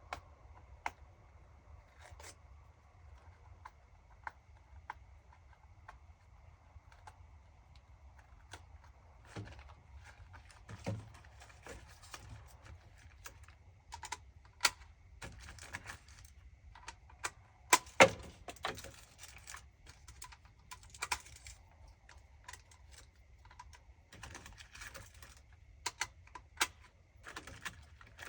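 Irregular light clicks and small knocks of hands working a rifle and its scope, as when turning the windage turret, with one sharper knock about 18 seconds in.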